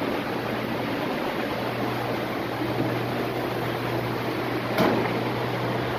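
Steady low mechanical hum with a constant hiss, like ventilation or machinery running, with a single brief click about five seconds in.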